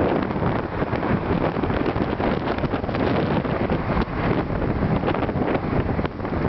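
Strong wind buffeting the microphone, a steady loud rushing noise.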